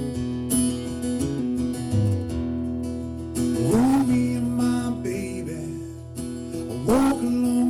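Solo acoustic guitar in an open tuning, strummed and picked with chords left ringing. Twice, about halfway through and again near the end, a louder note slides up in pitch.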